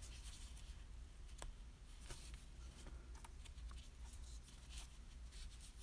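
Faint rustling and a few light clicks of a metal crochet hook working yarn through a bobble stitch, over a low steady room hum.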